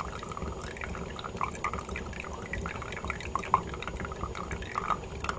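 Freshly brewed espresso dripping and trickling from a steam-driven home espresso machine's grounds holder into its carafe during extraction, in quick irregular drops over a low steady hum.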